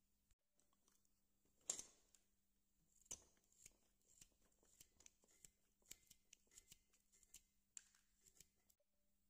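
Faint cuts of a carving knife paring a small wooden figure: two stronger slicing strokes in the first few seconds, then a run of small quick paring cuts, about three a second.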